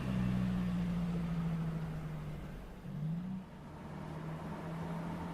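Mercedes-Benz SLC 300's 2.0-litre turbocharged four-cylinder engine running under way. The note sinks slowly, rises briefly in pitch about three seconds in, then settles to a steady hum.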